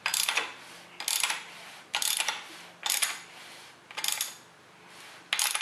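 Ratchet wrench on the crankshaft bolt of an engine being turned over by hand, its pawl clicking in about six short bursts, roughly one a second, as the handle is swung back between pulls.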